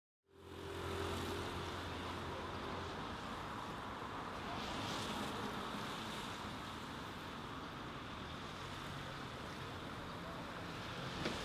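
City street traffic: a steady rush of passing vehicles, with a low engine hum during the first few seconds and a short click near the end.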